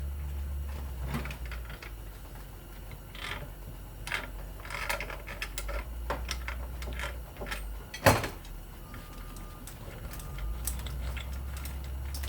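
Scattered metal clicks and knocks of hand tools working on a ceiling fan's parts during teardown, with one sharp knock about eight seconds in, over a steady low hum.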